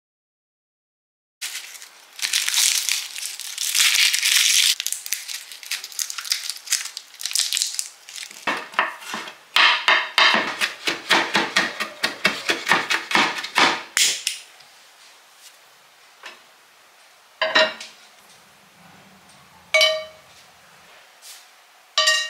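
Kitchen knife chopping garlic and onion on a wooden cutting board in quick runs of strokes, stopping about two-thirds of the way through. Then three light clinks with a short ring as dried star anise pods drop into an enamelled pan.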